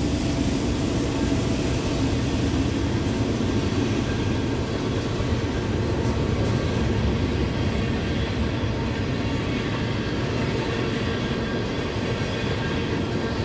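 Freight train tank cars rolling past, a steady rumble of steel wheels on rail.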